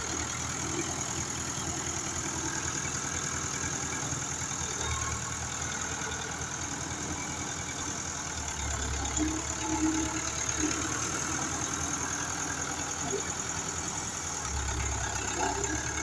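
Earthmoving machine's engine running steadily, its low hum growing louder about eight seconds in and again near the end.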